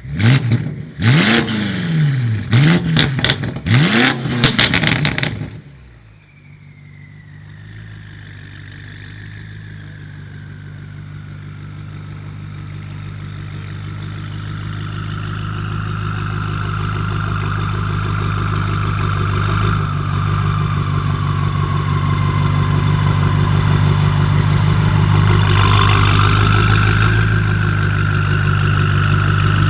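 BMW M5 F90's decatted twin-turbo V8 with an Akrapovic exhaust revved sharply several times in quick succession, then dropping to a steady idle that slowly grows louder.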